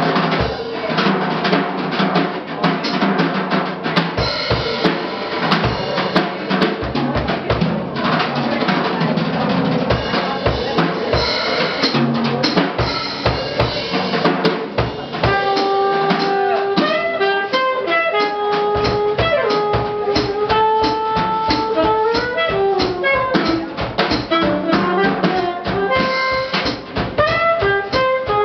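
Live jazz: a drum kit played busily with snare, bass drum and cymbals, then a saxophone melody comes in over the drums about halfway through.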